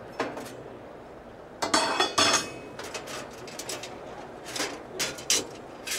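Heavy cast stainless steel grill grates being lifted off a gas grill and set down: a series of metal clanks and rattles, the loudest pair about two seconds in.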